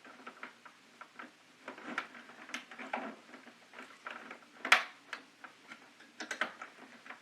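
Butter knife prying at the plastic snap clips of a KeyTronic E3601 keyboard case: irregular small plastic clicks and scrapes, with one sharper click a little under five seconds in.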